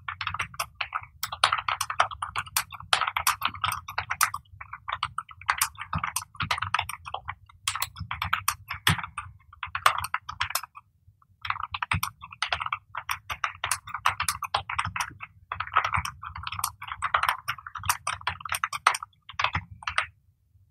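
Fast touch typing on a black full-size computer keyboard: rapid key clicks in quick word-length bunches at about 60 words per minute, with one brief pause about halfway. The typing stops shortly before the end.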